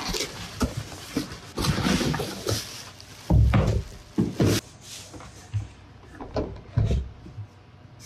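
Cardboard box being opened and handled, its flaps and packing rustling, with irregular knocks and heavier thumps as a Central Machinery bench belt sander is lifted out and handled. The loudest thumps fall about halfway through.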